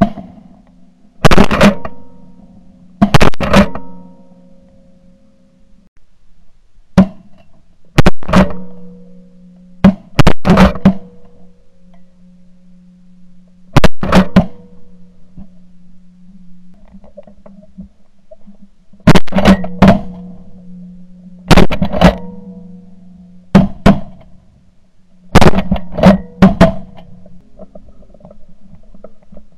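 Shotgun blasts heard from a camera mounted on the gun's barrel: about fifteen shots fired at flying geese and ducks, often in quick pairs or triples, each a sharp, very loud crack with a short ring after it.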